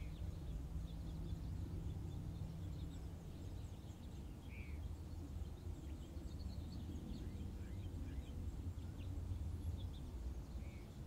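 Quiet room tone with a low steady hum and faint, scattered bird chirps, three short chirps standing out near the start, about halfway through and near the end.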